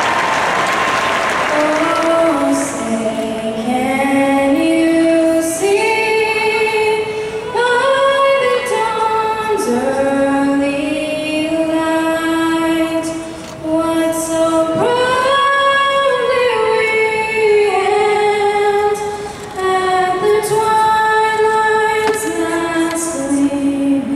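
A girl singing solo and unaccompanied into a microphone, a slow melody of long held notes. Crowd applause fades out in the first couple of seconds as she begins.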